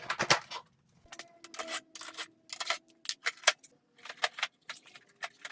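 Irregular series of sharp clicks and knocks, about a dozen, from hard plastic parts of a Samsung air conditioner being handled and unclipped during disassembly.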